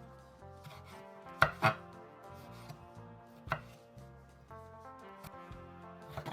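A knife chopping on a cutting board in a few separate strokes, two close together about a second and a half in and another about two seconds later, over soft background music.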